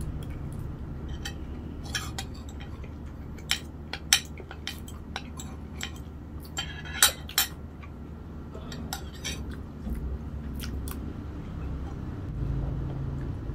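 Cutlery clinking and scraping against a plate while eating, in scattered sharp clinks, the loudest about seven seconds in, over a steady low hum.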